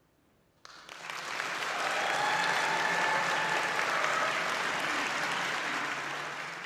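Audience applauding: it breaks out suddenly after a brief hush, swells, then begins to fade near the end, with a few voices calling out within it.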